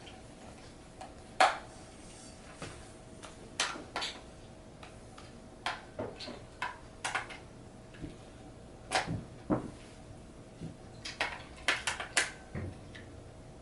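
Batteries and the plastic battery compartment of a toy remote control being handled: scattered sharp clicks and taps as the batteries are pushed into place, coming in a quick cluster near the end.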